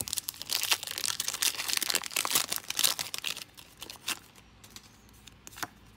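Foil booster-pack wrapper of Pokémon trading cards being torn open and crinkled by hand, a dense crackling that lasts about three and a half seconds and then gives way to a few light rustles.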